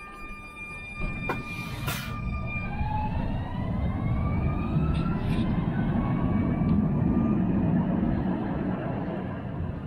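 Alstom Citadis Dualis tram-train pulling away from a platform: two sharp clicks in the first two seconds, then the electric traction drive's whine rising steadily in pitch as it accelerates past. Beneath it, a rumble of wheels on rails grows to its loudest near the end.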